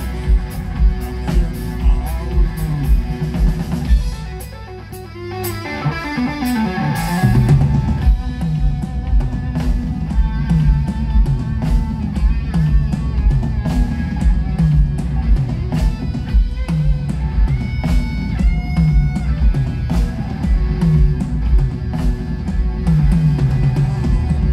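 Live rock band playing an instrumental passage: electric guitars over bass, keyboards and a drum kit keeping a steady beat. About four seconds in the beat drops out for a moment, then the full band comes back in.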